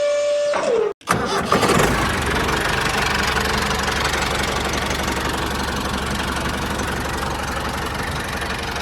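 A brief held tone slides down in pitch. About a second in, an engine starts and runs steadily with a fast, even low chugging.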